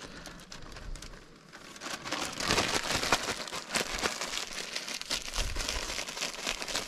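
A sealed bag holding calamari pieces and seasoned cornflour being shaken to coat the squid: a rapid crinkling rustle, softer at first and fuller and louder from about two seconds in.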